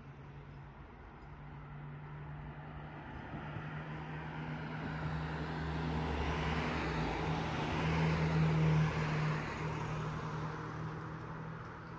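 A car driving past on the road, growing louder to its closest point about eight or nine seconds in, then fading away, its engine tone steady over the tyre noise.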